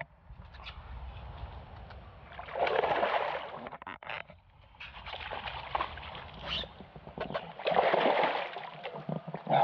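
Water splashing twice, each splash lasting about a second, about three seconds in and again near the end, over a faint steady wash of wind and water.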